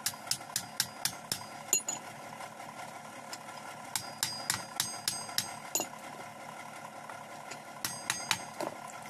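Blacksmith's hand hammer striking hot iron on an anvil in three quick runs of blows, about four a second, each blow with a short metallic ring. The iron is being forged into a sarota cutter blade.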